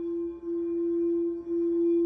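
Crystal singing bowl tuned to F, rubbed around the rim with a mallet: one steady, long tone that grows louder, with a slight dip about once a second as the mallet goes round.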